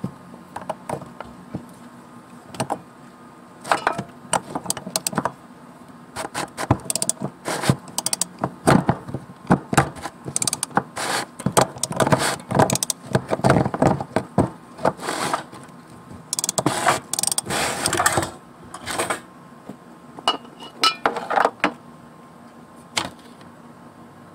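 Plastic fuel pump locking ring being worked loose with a clamp-on metal ring tool. A run of irregular clicks, knocks and scrapes of metal on plastic, thickest in the middle and thinning out near the end.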